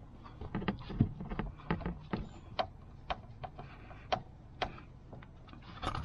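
Plastic door sill trim being pressed back onto a car's door sill, its clips snapping into place: about a dozen irregular clicks and light knocks, the sharpest about a second in.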